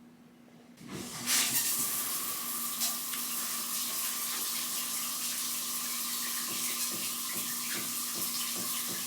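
Water running from a tap, turned on about a second in, then a steady rush with a faint steady whine underneath.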